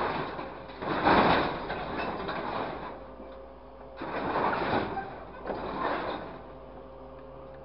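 Grapple truck's hydraulic grab pressing scrap wood and sheet metal down into the truck bed, with bursts of crunching and scraping about a second in and again around four to six seconds. A steady engine hum continues underneath and is left on its own near the end.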